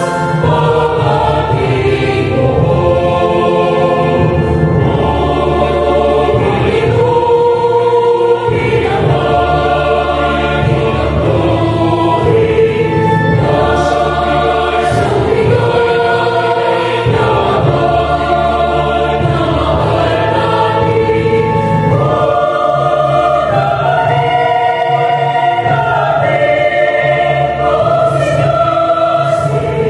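Mixed choir of women's and men's voices singing a Tagalog hymn in harmony, holding chords that shift every second or two.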